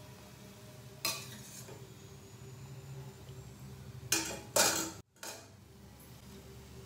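Metal slotted spatula clinking and scraping against a steel frying pan of oil: a sharp clink about a second in, then two louder scrapes about four and a half seconds in, over a low steady hum.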